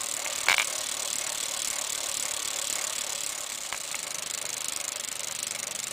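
Bicycle rear wheel spinning freely, its freewheel ratchet pawls ticking in a fast, steady rattle, with a couple of single clicks.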